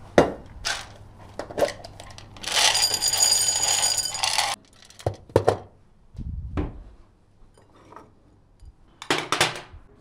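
Kitchen handling sounds: sharp knocks and clinks of plastic food containers and a plate set down on a countertop, a dense rattling rush lasting about two seconds in the middle, then a low thud and a short clatter as a refrigerator door is handled.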